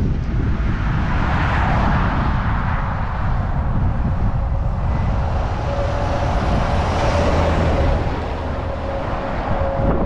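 Case IH 8120 Axial-Flow combine running steadily while harvesting corn: an even, low engine rumble, with a steady whine joining about halfway through.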